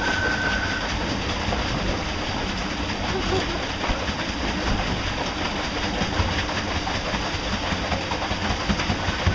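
A small boat underway with a Golden Motor L-05 electric outboard running: a steady rushing of water and wind with a low rumble.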